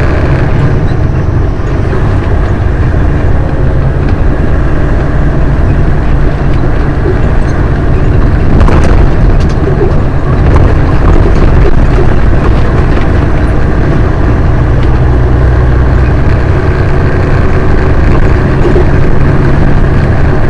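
Detroit diesel engine of a Western Star truck running steadily while driving, heard from inside the cab. Its engine note changes a few times.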